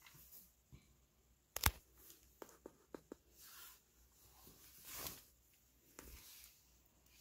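Handling noise from a phone being moved about: a sharp knock about one and a half seconds in, a quick run of small clicks just after, and soft rustling.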